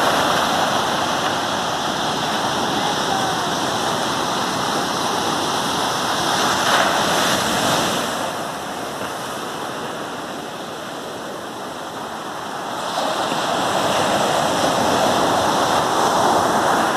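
Ocean surf breaking on a sandy beach: a steady rushing wash of waves that eases off for a few seconds in the middle and builds again near the end.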